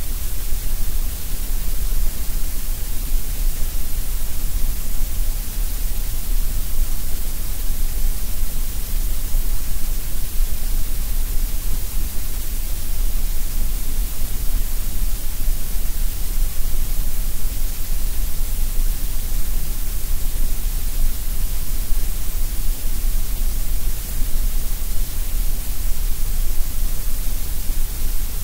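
Steady generated colored noise: an even, unchanging hiss with a strong deep rumble beneath it.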